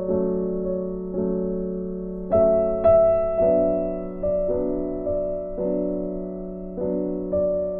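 Gentle background music: slow, sustained keyboard chords, a new chord about once a second.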